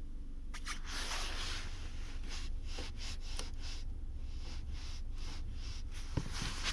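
Low, steady rumble of a 2020 Volkswagen Polo's 1.6-litre engine heard from inside the cabin, with stretches of hiss and a few light clicks. About six seconds in comes one short knock, the thump the owner complains of when releasing the clutch of the manual gearbox.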